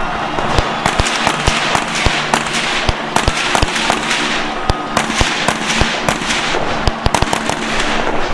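Rifle shots fired in quick, irregular strings, roughly two to four a second, as in a practical (IPSC) rifle stage.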